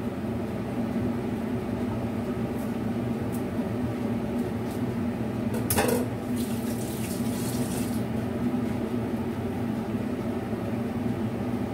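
Kitchen sink and cutting-board sounds over a steady low hum: a few light knocks on the wooden board, then a sharp clink about six seconds in, followed by the sink tap running for about two seconds.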